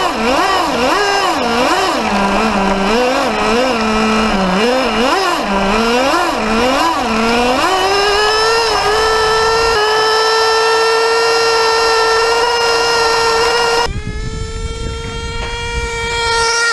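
Radio-controlled car's motor heard from a camera mounted on the car. It revs up and down about once or twice a second, then climbs to a steady high-pitched buzz. Near the end the sound drops suddenly and the buzz goes on from farther away.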